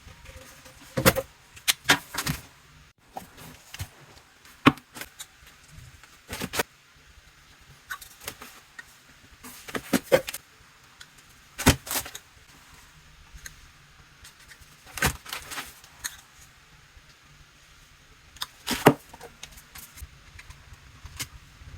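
Irregular clicks, knocks and light clatter of hoses, fittings and tools being handled during a dishwasher hookup, coming in short clusters every second or two.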